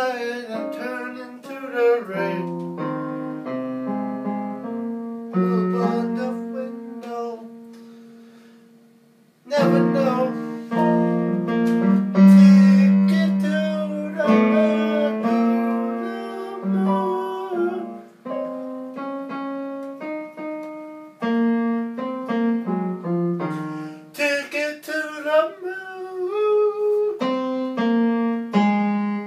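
Electronic keyboard played with a piano sound, held chords under a melody, with a man singing along. The notes die away about eight seconds in and come back loudly a second or so later.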